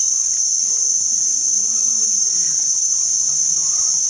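Cicadas singing in a steady, high-pitched chorus, with faint voices underneath.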